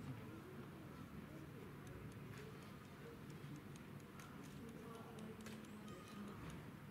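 Faint background of distant, murmuring voices, with scattered light ticks from about two seconds in.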